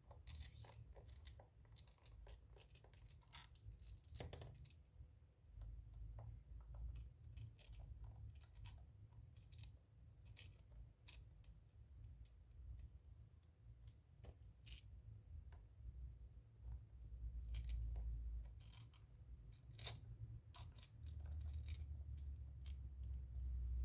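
Faint, scattered small clicks and taps of a handheld electronic tester's plastic case being handled and pried open.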